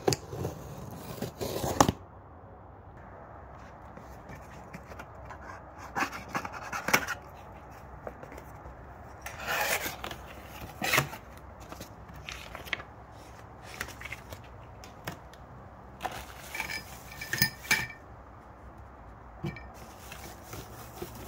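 Parts of a fruit picker being unpacked and handled: scattered knocks, rustles and scrapes, with pole sections clinking and ringing briefly in a few knocks about three-quarters of the way through.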